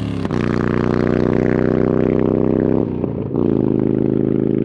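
Motorcycle engine running at a steady pitch, breaking off briefly about three seconds in and then running steady again.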